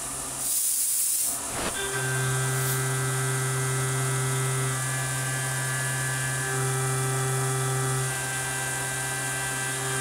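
Tormach 770 CNC mill spindle turning a 1/2-inch solid carbide end mill at 8000 rpm on a light finishing pass along the wall of an aluminium block, a steady whining tone. A short loud hiss comes about half a second in, and the steady cutting tone drops out and returns about two seconds in.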